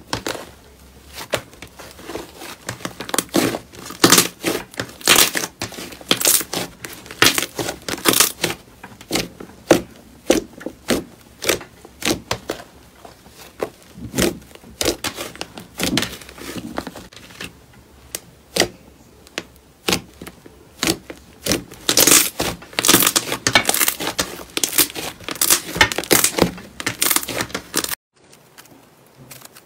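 Slime being squeezed and worked by hand, giving irregular crackles and pops as it is pressed. It breaks off abruptly near the end, and a quieter stretch follows.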